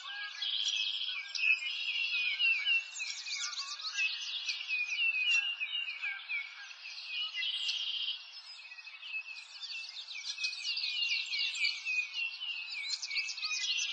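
A dense chorus of many small songbirds chirping and trilling, with quick down-slurred chirps overlapping without a break. All of it is high-pitched.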